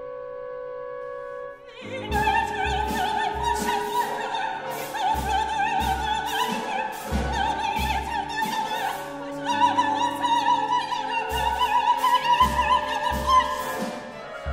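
Contemporary chamber opera: a soprano sings a high line with vibrato over a small ensemble of strings, winds, piano and percussion. After a held chord, low drum beats in groups come in about two seconds in and carry on under the voice.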